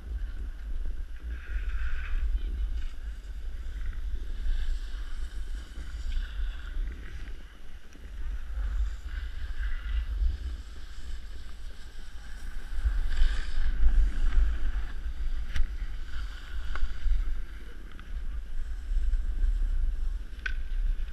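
Wind buffeting a moving camera's microphone as it slides down a snowy slope, a steady low rumble over the hiss of sliding on packed snow, with a few sharp clicks about fifteen and twenty seconds in.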